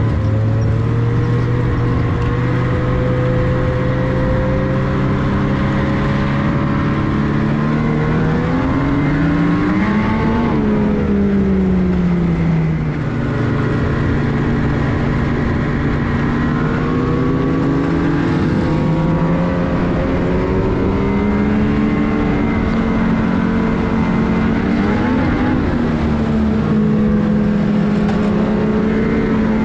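Ski-Doo Renegade 850's two-stroke twin engine running steadily at low trail speed. It is throttled up once about ten seconds in, eased back a few seconds later, and given smaller blips of throttle further on. The engine is a new crate engine still being broken in.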